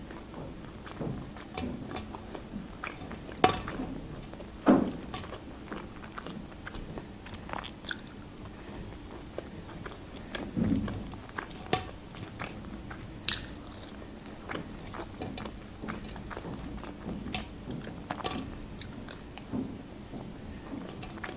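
Close-up mukbang eating sounds: biting and chewing fried potato wedges and chicken nuggets, with irregular wet mouth clicks and several louder bites spread through.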